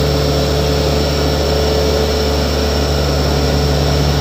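Volvo single-drum road roller's diesel engine running steadily, a constant low drone with a few fixed higher tones over it.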